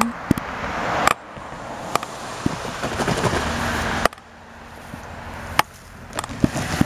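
Road traffic and wind noise that swells and drops off suddenly twice, with several sharp clicks and knocks from handling the camera.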